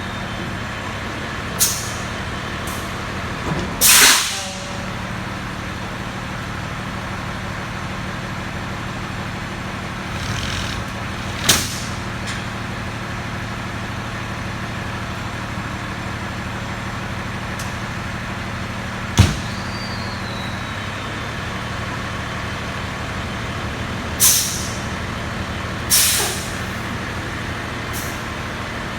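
Fire truck's engine running steadily, with several short hisses of air from the air brakes, the loudest about four seconds in, and a sharp click a little past the middle.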